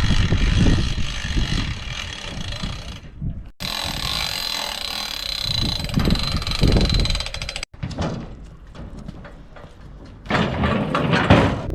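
Mechanical rattling and clanking of log-handling or sawmill gear, in three separate shots cut together. A steady high whine runs through the middle shot.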